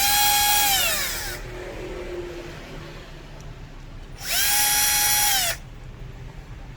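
A small handheld electric power tool runs twice in bursts of about a second, first at the start and again just after the four-second mark. Each time it gives a steady high whine that sinks in pitch as the motor spins down.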